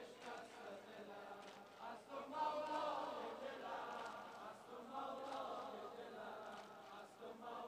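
A congregation of mourners chanting a noha refrain in unison, faint and off-microphone, rising slightly a couple of seconds in.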